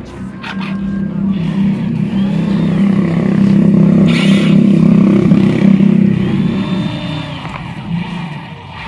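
A motor or engine running at a steady pitch, growing louder through the first half and fading again near the end.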